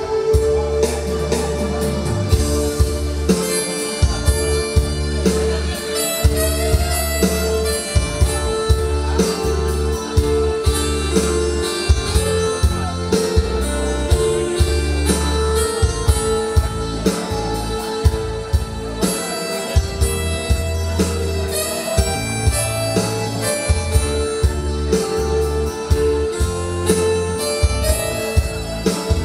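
Instrumental music with a steady beat: a long-held melody line over a bass and chord accompaniment.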